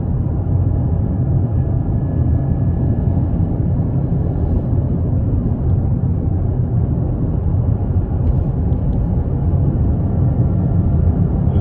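Steady low rumble inside the cabin of a Toyota GR Corolla cruising along the road: its turbocharged three-cylinder engine and tyre noise.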